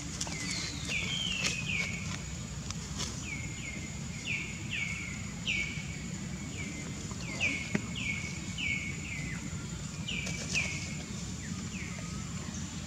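An animal giving short, high chirps that drop in pitch, repeated in quick runs of about two a second, over a steady high-pitched whine.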